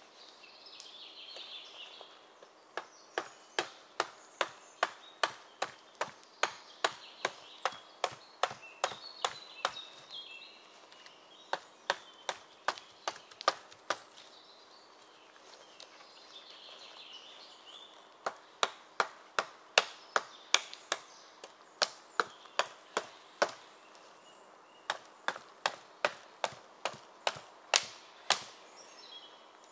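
Gränsfors Bruk hatchet chopping wood, striking in steady runs of about two blows a second with short pauses between runs.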